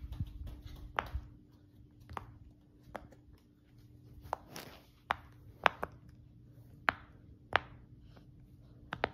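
Silicone push-pop fidget toy popping as small fingers press its bubbles: short, sharp pops at irregular intervals, about one a second, the loudest in the second half.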